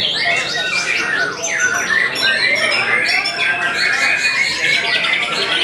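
White-rumped shamas (murai batu) singing several at once in a dense, continuous overlap of loud whistles, slurred glides and rapid chattering trills.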